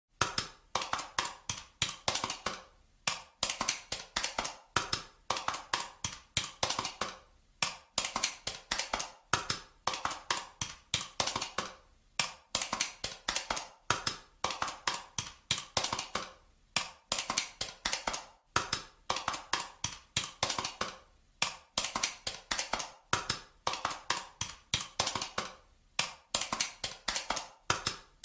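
Calculator keys pressed in quick runs of clicks, with a brief pause every second or two between runs.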